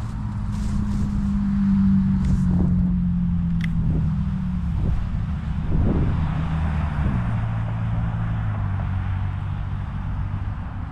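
Car engine running, a steady low hum whose pitch shifts a few times, with a few faint knocks.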